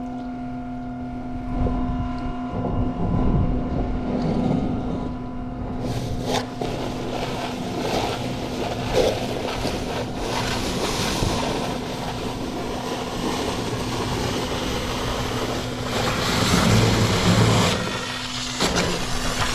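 Steady drone of a septic vacuum pump truck running, holding one low tone; about six seconds in a loud rushing noise joins it and carries on.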